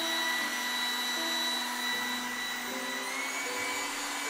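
Trifo Lucy robot vacuum running on its lowered, quiet suction setting: a steady motor whine over the hiss of the suction, the whine stepping up slightly in pitch about three seconds in.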